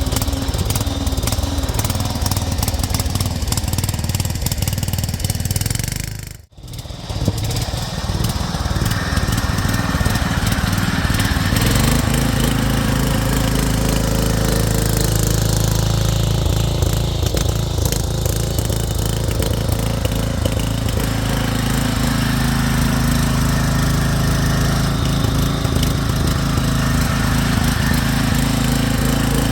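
Engine of a converted Craftsman garden tractor running steadily under way, with a brief break in the sound about six seconds in; from about twelve seconds in the engine note turns steadier and stronger.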